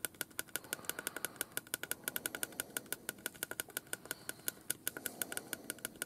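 Small push-button power switch on the Roberts R9974 radio's circuit board being pressed over and over, a fast even run of sharp clicks, about eight a second. The switch is being worked to spread switch cleaner through its contacts, which make only intermittent contact.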